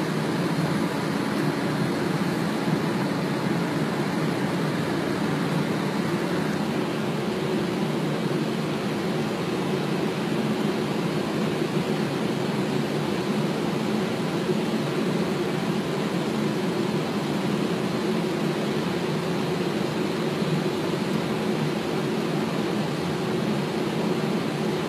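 Steady flight-deck noise of a jet airliner on approach: an even rush of air and air conditioning with a low hum underneath.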